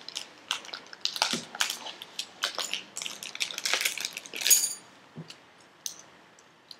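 Dense crackling and crinkling clicks of materials being handled, ending in a louder rustle about four and a half seconds in, then a few scattered clicks.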